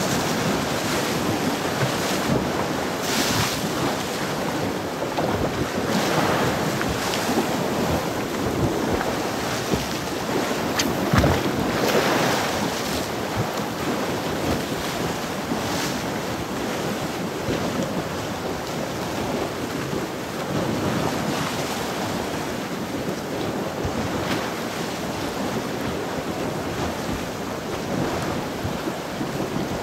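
Sea waves washing in against the shore, with steady wind buffeting the microphone. The sound rises and falls as the waves surge, and there is a brief sharp click about eleven seconds in.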